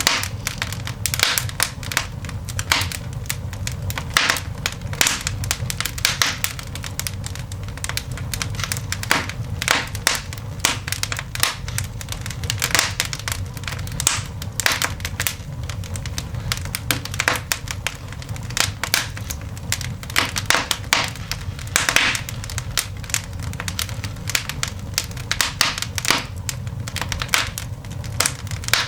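Newly lit coal fire in a cast iron dog grate crackling and popping: a dense, irregular run of sharp snaps and pops over a steady low rumble.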